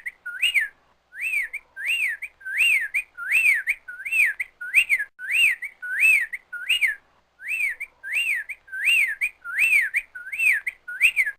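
Whip-poor-will singing its song, the whistled three-note "whip-poor-will" phrase repeated over and over, about one and a half phrases a second, with brief pauses twice.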